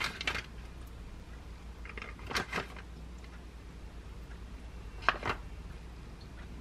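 Chicken pieces being picked out of a plastic pouch with a utensil and set onto lettuce in a ceramic dish: a few short clicks and rustles, at the start, about two and a half seconds in and about five seconds in. A faint steady low hum runs underneath.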